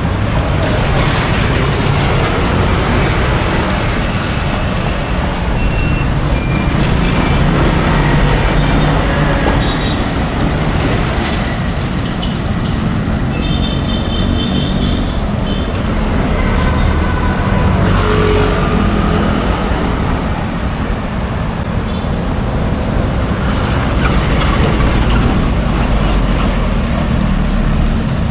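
Steady city street traffic noise: motor vehicle engines running and passing close by, with a brief high-pitched tone about halfway through.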